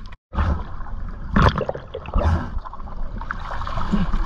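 Water splashing and sloshing at the side of a boat as a speared wahoo is hauled aboard, with a louder splash about a second and a half in.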